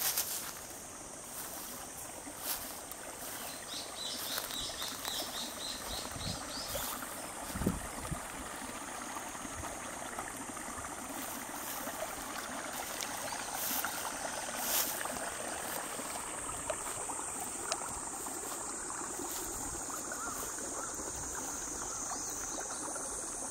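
Water trickling in a small grassy stream, with a steady high-pitched insect drone throughout and a short run of insect chirps about four seconds in. A few light knocks are heard, the strongest at about eight seconds.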